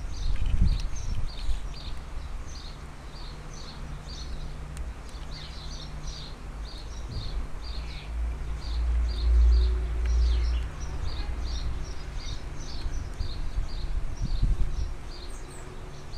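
Small garden birds chirping in quick, repeated short notes throughout, over a low rumble that swells about halfway through.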